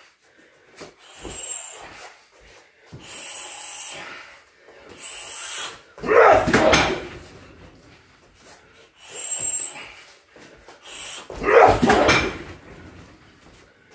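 Shin kicks landing on a car tyre mounted on a free-standing boxing stand: two loud, heavy hits about five and a half seconds apart, each lasting about a second.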